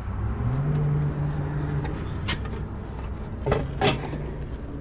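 A steady low hum like a vehicle engine running, strongest in the first two seconds. A few short wooden knocks and scrapes, about two and a half seconds in and twice near the end, as a heavy live-edge wood slab is pulled out and handled.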